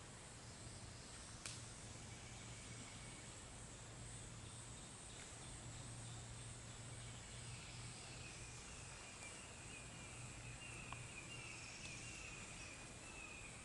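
Faint forest ambience of insects: a steady high-pitched drone throughout, joined by a lower buzzing call from about halfway in. There is a single click about a second and a half in.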